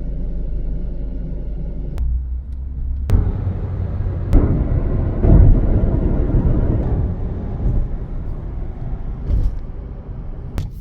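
Car running, heard as a steady low hum, then a heavier low rumble that swells about five seconds in and fades. Sharp clicks come about two, three and four seconds in.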